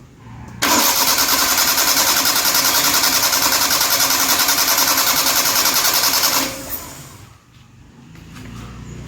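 Starter motor cranking the Maruti 800 SS80's three-cylinder engine for about six seconds with a fast, even pulsing, then cutting off abruptly without the engine catching and running: the car is being difficult to start.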